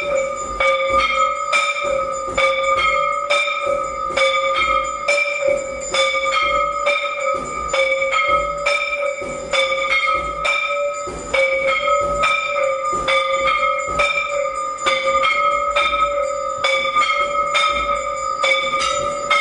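Temple bells rung without a break during aarti: quick, unevenly spaced strikes, two or three a second, over a steady ringing tone.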